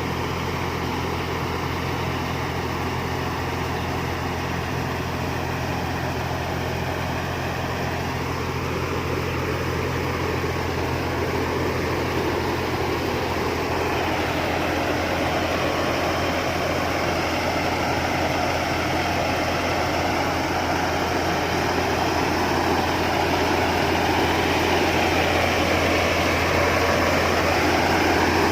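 Rice combine harvester's engine running steadily, with a steady low hum under a broad mechanical rush that grows gradually louder through the second half.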